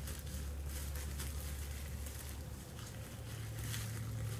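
Plastic wrap (cling film) being handled and folded around dyed hair with gloved hands: faint, irregular crinkling and rustling over a steady low hum.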